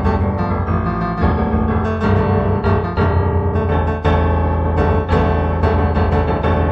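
Solo piano music, notes struck in a steady flow over a deep sustained bass.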